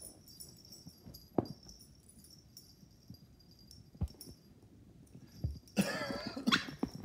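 Beagle puppy and cat scuffling in play, with a couple of soft knocks, then near the end a burst of puppy play vocalizing, a wavering, pitched sound.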